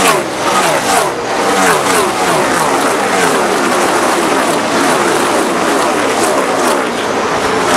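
A pack of NASCAR Sprint Cup stock cars with V8 engines racing past at full speed, one after another. Each engine note drops in pitch as the car goes by.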